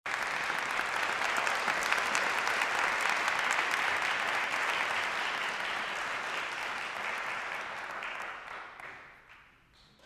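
Audience applauding: dense clapping that starts suddenly, holds steady, then thins out and dies away over the last two seconds.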